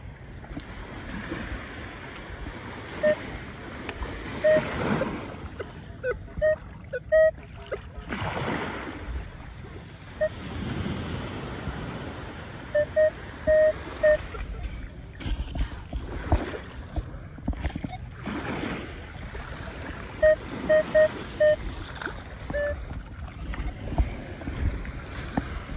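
Minelab Equinox 600 metal detector giving short, same-pitched beeps, some single and some in quick runs of two to four, as its coil sweeps over wet sand. Behind them runs a steady hiss of surf and wind.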